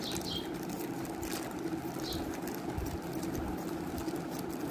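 Scissors cutting through a thin clear plastic polybag, with faint snips and plastic crinkling over a steady low background hum.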